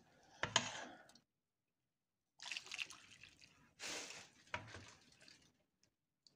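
Warm milk and gelatin panna cotta mixture poured from a small bowl into a plastic-wrap-lined dish in three separate splashing pours, with a short knock about half a second in.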